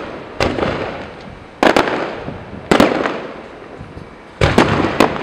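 Aerial fireworks shells bursting overhead: a run of sharp bangs, some in quick pairs, each trailing off in a rumbling echo.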